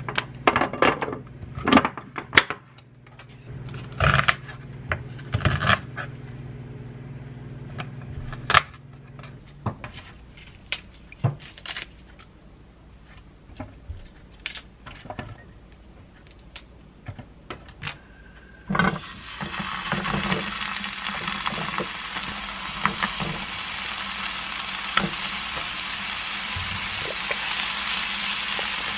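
Clicks and knocks of plastic containers and packaging being handled in a kitchen. About two-thirds of the way in, a steady sizzle starts suddenly as Korean beef tenderloin and onion fry in oil in a non-stick pan.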